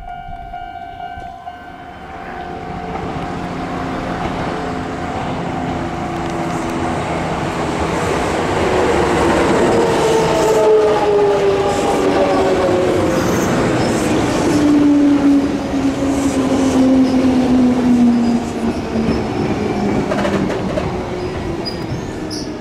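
A Kintetsu electric train runs into the station, wheels rumbling over the rails, its motor whine falling steadily in pitch as it brakes. A level-crossing bell rings at the start and fades within the first few seconds.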